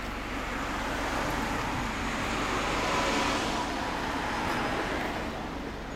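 Honda CB1300 Super Four's inline-four idling steadily through a Nojima full exhaust, a low, even rumble. Road traffic noise swells and fades around the middle.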